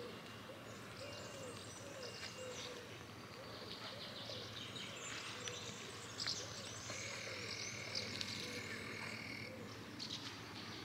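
Outdoor ambience: birds chirping, with faint voices of people in the distance.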